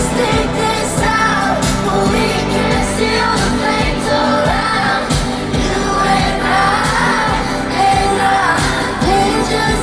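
Live pop music: a female singer singing over a loud backing track with heavy bass.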